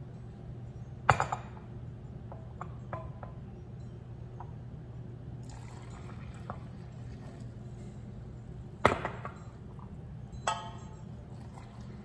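Water poured from a pan into a ceramic mug, a thin steady stream from about halfway through. Sharp clinks of metal spoons against the ceramic mugs, one about a second in and two near the end, with a few light ticks in between.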